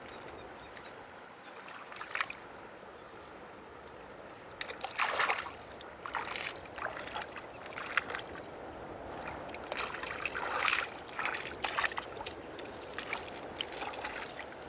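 River water splashing and sloshing in irregular bursts over a steady trickle, loudest about five seconds in and again around ten to eleven seconds.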